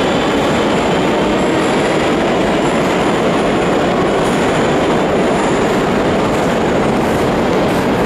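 Moscow Metro train pulling out of the station into the tunnel: a loud, steady rumble of wheels on rail filling the vaulted platform hall, with thin high squeals that come and go.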